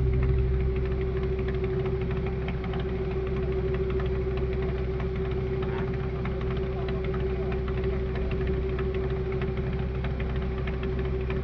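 Fishing boat's engine running steadily, a constant low rumble with a steady tone and a faint rapid knock.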